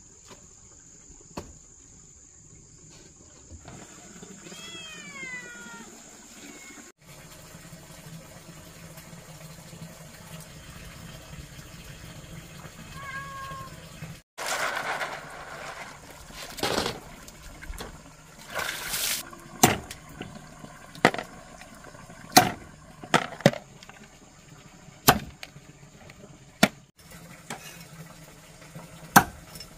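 A cleaver chopping on a round wooden cutting board, single sharp strikes a second or so apart in the second half. Before it, hands splash and rub in a bowl of water, and about five seconds in a short whining animal call falls in pitch.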